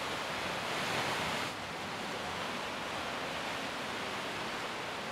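Steady wash of sea surf, swelling a little about a second in.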